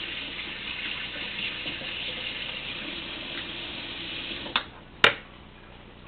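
Water running steadily from a kitchen tap, shut off abruptly about four and a half seconds in, followed by two sharp knocks, the second the loudest.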